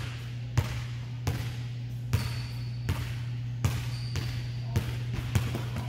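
Basketball dribbled on a hardwood gym floor, bouncing about once every three-quarters of a second. A steady low hum runs underneath.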